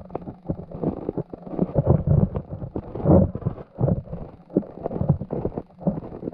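Muffled underwater rumbling and sloshing picked up through a submerged camera, with irregular low swells and scattered short knocks and no steady motor tone.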